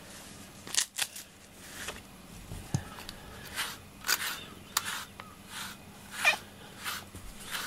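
Slicker brush with fine, densely packed wire pins drawn through a cat's fur in quick repeated strokes, each a short scratchy rasp, about one every half second.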